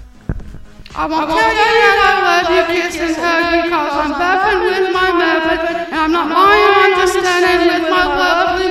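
A voice sings wordless, wavering notes over music. It comes in loudly about a second in, after a soft thump.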